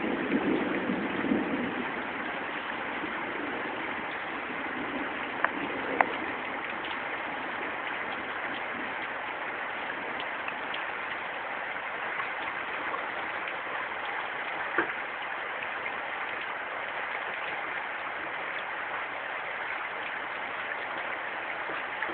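Steady rain falling during a thunderstorm, with a few sharp drip or tap sounds. A low rumble fades out in the first couple of seconds.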